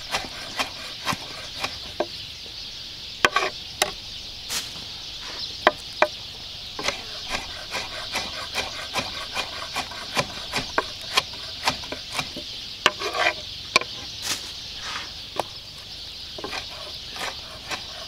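A chef's knife chopping roasted poblano peppers on a wooden cutting board: irregular taps of the blade on the board, about two a second, with a few louder knocks.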